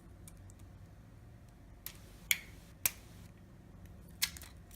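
A few sharp light clicks and ticks from handling the replacement phone screen while its adhesive backing film is peeled off, the loudest a little after two seconds in and near the end.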